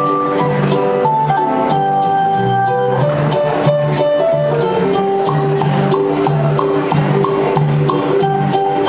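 Recorded dance music with a steady percussive beat, a repeating bass line and a melody of held notes.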